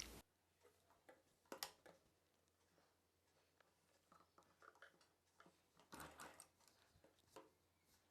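Near silence: room tone with a few faint, brief clicks and rustles.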